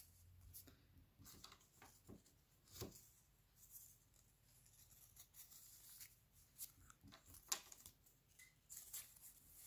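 Faint rustling and light clicks of cardboard rings cut from toilet-paper rolls being handled and slid over one another by hand, with a few sharper ticks scattered through.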